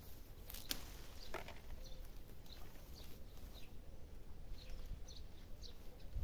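Small birds chirping faintly outdoors, with short high chirps scattered every half second or so. Two light clicks come in the first second and a half, over a low wind rumble.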